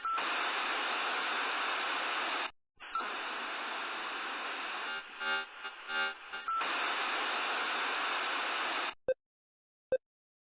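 Harsh, loud static-like noise with stretches of distorted pitched tones, dropping out briefly about two and a half seconds in and cutting off sharply near the end. A short tick follows about once a second.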